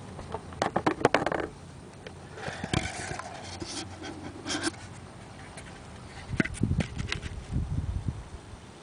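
Handling noise from the camera being set down on concrete: a run of sharp clicks and knocks in the first second and a half, then rustling, then a few dull thumps near the end.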